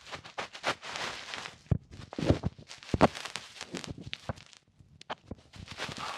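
ASMR handling sounds: irregular crackly rustling with a string of sharp taps and clicks, several of them louder knocks about two and three seconds in.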